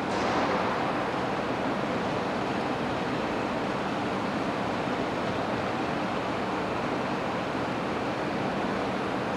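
Steady rushing noise with no distinct events, with a short falling hiss right at the start.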